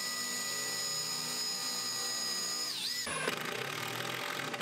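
Cordless drill running at a steady speed with a high motor whine as it bores a pilot hole into a chipboard panel; the pitch sags briefly and the drill stops about three seconds in. A cordless impact driver then rattles as it drives a screw into the panel.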